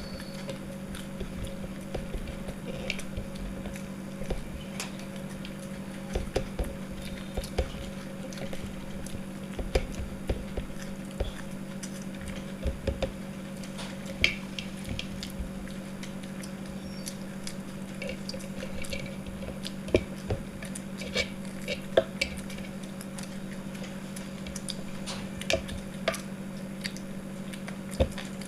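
People eating from plates: scattered clinks and taps of utensils on dishes with soft chewing and squishy mouth sounds, over a steady low hum.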